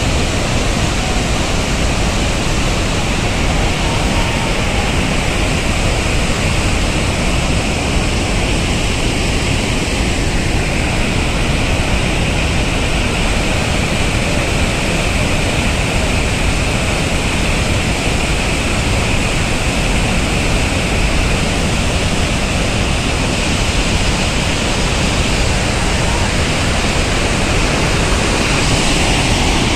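Water discharging from a dam outlet into a concrete spillway channel: a loud, steady rush of churning white water.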